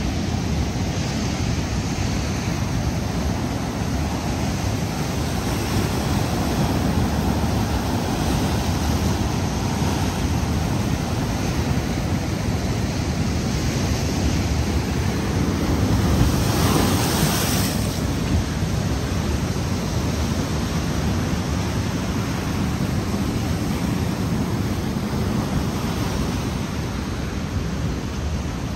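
Ocean surf washing in steadily, with one wave swelling louder a little past the middle.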